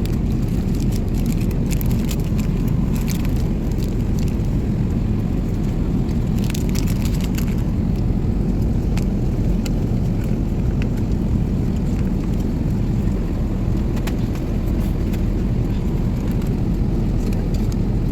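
Steady low rumble of an Airbus A380's cabin in flight, engine and airflow noise. A few light clicks cut through it about a second in and again about a third of the way through.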